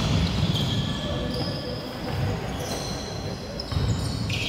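Indoor basketball game sounds: a basketball dribbled on the hardwood court and short high-pitched sneaker squeaks, over a steady hum of voices in the gym.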